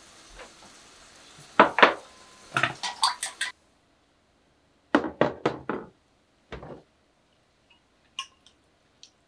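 Kitchen knocks and clinks: a few sharp taps of cookware at the gas stove where a rolled omelette is cooking in a square tamagoyaki pan, then, after a brief silence, ceramic plates set down with four or five knocks on a stainless-steel counter.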